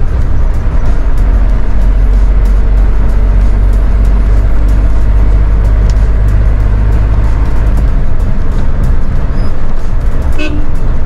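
Mitsubishi Fuso Rosa minibus on the move, its diesel engine and road noise rumbling in the driver's cab, the low rumble easing about eight seconds in. A short vehicle horn toot sounds near the end, over music.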